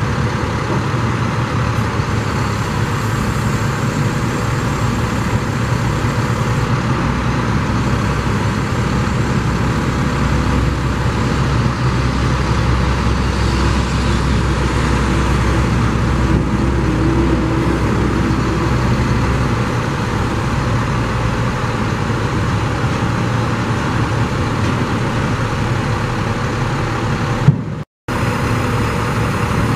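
International 4300 truck's diesel engine running steadily while the knuckleboom grapple loader's hydraulics are worked; the low hum deepens for several seconds in the middle. A sharp click and a brief dropout come near the end.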